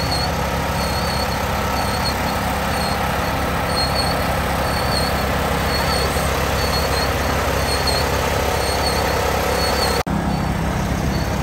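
Engine of a small parade tractor running steadily, with a short high squeak repeating about every two-thirds of a second; the sound drops out for an instant near the end.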